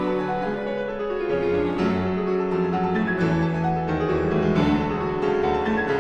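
Background music: classical-style keyboard piece, piano or harpsichord, with notes changing several times a second.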